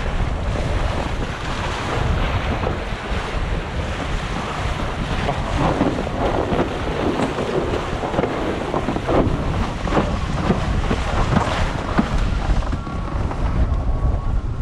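Strong wind buffeting the microphone over the rush of a windsurf board planing across choppy sea, with frequent short splashes and slaps of water against the hull. Faint thin whistle-like tones come in near the end.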